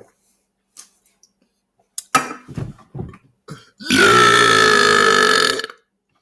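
A man belches loudly for about two seconds, beginning about four seconds in, at a fairly steady low pitch. About two seconds earlier come a sharp click and a few short noises.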